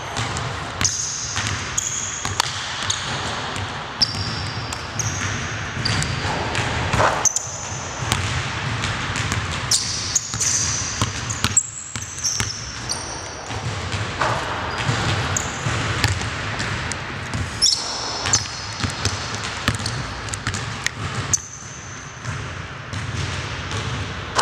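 A basketball dribbled on a hardwood gym floor, repeated sharp bounces in uneven runs, with sneakers squeaking in short high chirps between them.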